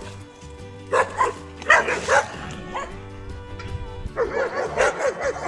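A dog barking in short bursts, about a second in, around two seconds, and in a quick run near the end, over background music with steady held tones.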